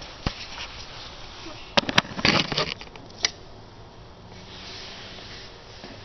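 Handling noise from a camera being moved and set down: a few sharp clicks and knocks, with a short sniff about two seconds in.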